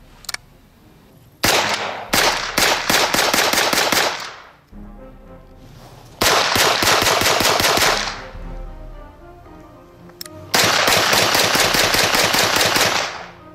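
SIG Sauer MPX 9mm Luger submachine gun firing three long bursts on full automatic, each a fast, even string of shots. The second burst is the shortest.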